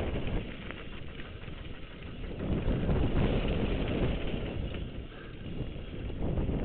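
A mountain bike riding downhill over a loose dirt and gravel trail: tyre crunch and bike rattle under a rush of wind on a helmet camera's microphone. The rush swells about two and a half seconds in, dips around five seconds, then rises again.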